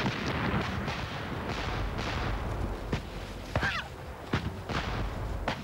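Gunfire and explosions in a mock battle: irregular sharp shots and booms over a continuous low rumble, with several shots close together in the second half.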